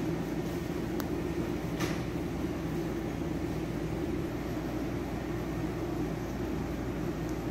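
Steady low mechanical hum, with a single sharp click about a second in and a short swish just before two seconds.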